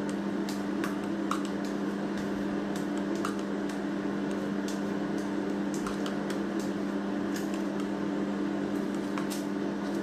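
A low, steady machine hum with two low tones runs throughout. Over it come scattered light clicks and scrapes from a metal cake scraper smoothing whipped-cream frosting on a square cake and its foil cake board.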